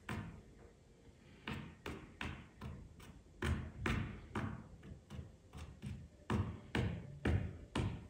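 Paintbrush dabbing and scrubbing oil paint onto a stretched canvas: an irregular run of soft taps and short brushing strokes, about two a second, heaviest in the second half.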